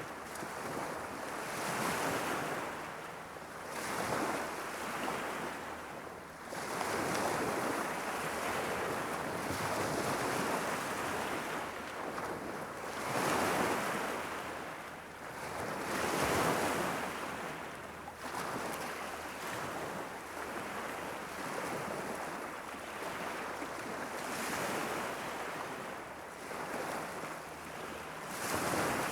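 Irish Sea waves washing against the shore in a continuous rush that swells and falls back every few seconds, with the strongest surges about halfway through.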